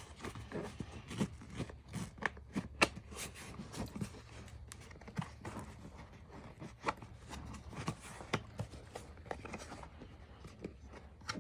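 Irregular clicks, knocks and scrapes of hard plastic as an ATV's center console is pried off and handled.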